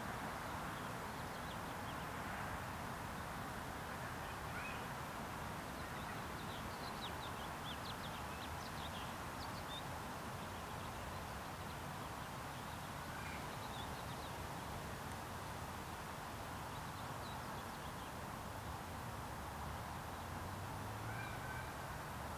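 Steady outdoor background noise with faint, scattered bird chirps, the chirps most frequent in a cluster near the middle; a low hum comes in near the end.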